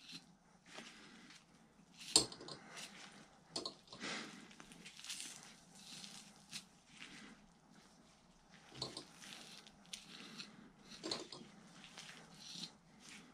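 Faint wet squishing, scraping and tearing of a raccoon hide being pulled down and cut free from the carcass with a knife, with a few sharp clicks or knocks, the loudest about two seconds in.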